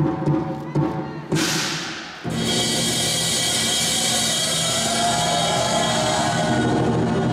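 Dragon dance percussion: drum beats about twice a second over ringing gong tones, broken by a crash about a second in. Just after two seconds it cuts abruptly to a dense, steady wash of music.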